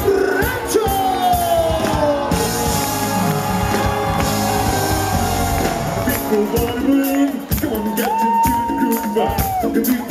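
Live funk band playing loudly through a stage PA, with a horn section of saxophone, trumpet and trombone, electric guitar and drums. A singing voice and shouts and whoops from the crowd come in over it.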